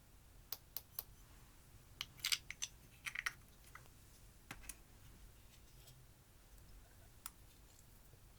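Sharp clicks and small cracks of makeup being handled and broken up: a few single clicks, a quick cluster a couple of seconds in, then scattered clicks.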